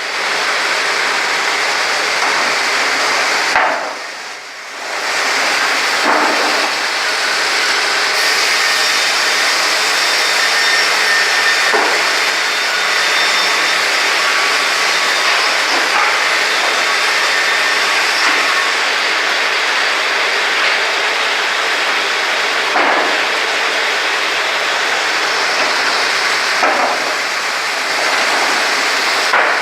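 Brenta Vulic KA-600 mobile horizontal band sawmill running, a steady hissing machine noise that dips briefly about four seconds in.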